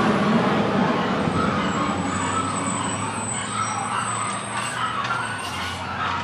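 Garbage truck pulling away, its engine and road noise slowly fading as it drives off.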